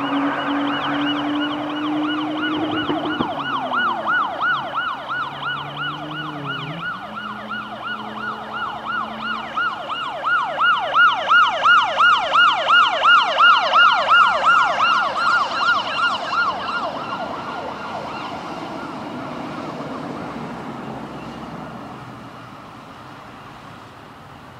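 Fire engine siren sweeping rapidly up and down, about three times a second, growing louder to a peak around the middle, then fading away as the appliance moves off. Under it in the first few seconds there is a lower steady tone that shifts in pitch.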